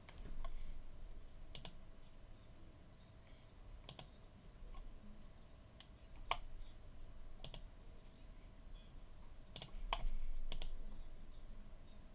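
Computer keyboard and mouse clicks: about ten single, sharp clicks at irregular intervals over quiet room tone.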